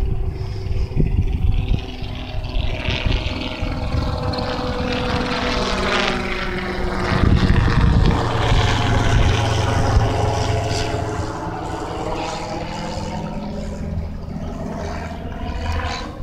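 Electric motor and propeller of an FMS P51 Mustang 800 mm RC plane running in flight, a whine whose pitch sweeps down and back up as the plane passes overhead. Wind rumbles low on the microphone.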